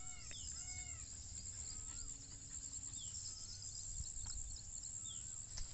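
Faint open-field ambience: a steady high insect hiss with scattered animal calls. A few arched, whine-like calls come in the first second, then short chirps and quick falling high notes, with two faint knocks near the end.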